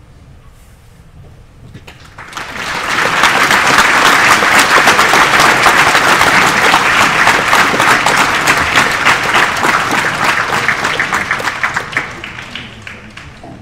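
Audience applauding: the clapping starts about two seconds in, stays loud and steady, and dies away near the end.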